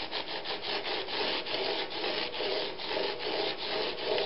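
Steel chisel in a honing jig rubbed back and forth on abrasive paper, a scratchy hiss in quick, even strokes several a second, honing down a thick edge left from grinding back past chips in the blade.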